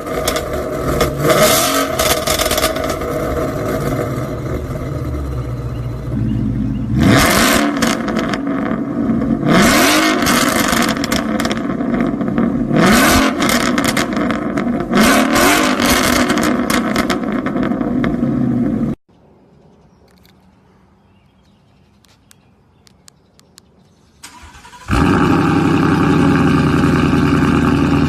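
Ford Mustang GT's V8 exhaust running loud, blipped up several times, each rev rising sharply and falling back. The sound cuts off suddenly about two-thirds through. After a few seconds of near-quiet it returns as a steady, loud drone.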